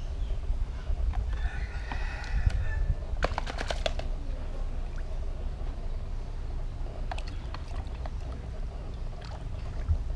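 Wind rumbling on the microphone. A brief higher-pitched sound comes about two seconds in, then a quick cluster of sharp clicks about three seconds in, and a few single clicks later.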